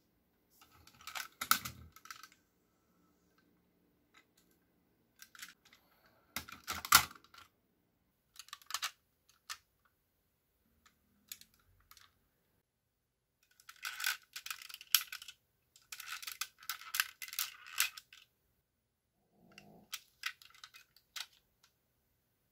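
Hard plastic clicking and snapping as a DX Engine-Oh transforming robot toy's parts are folded and clicked into place by hand, in about six short flurries of clicks and rattles with pauses between.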